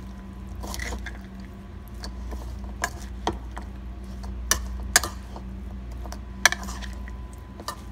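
A spoon clinking and scraping against a bowl while a relish of chopped vegetables, corn and black beans is gently stirred: about seven sharp, irregular clinks.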